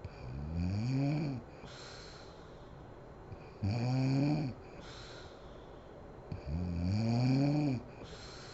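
Sleeping woman snoring: three heavy pitched snores about three seconds apart, each rising then falling in pitch, with breathy exhales between them.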